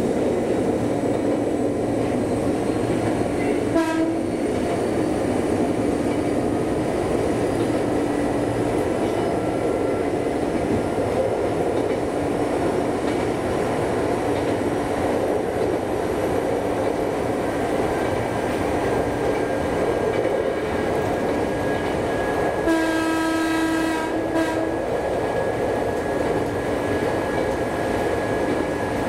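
Former Eidan 3000 series electric train running at speed, heard from inside the driver's cab: steady wheel and running noise with a faint hum that comes and goes. A brief tone sounds about four seconds in, and the train's horn sounds for about two seconds about three-quarters of the way through.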